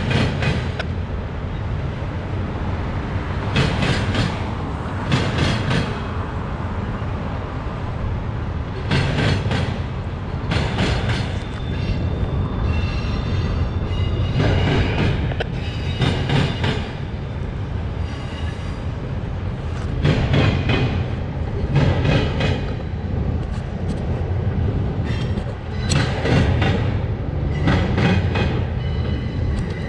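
Freight train of autorack cars rolling past, with a steady rumble and the wheels clacking in pairs every second or two as the trucks cross the rail joints. A faint high wheel squeal comes and goes around the middle.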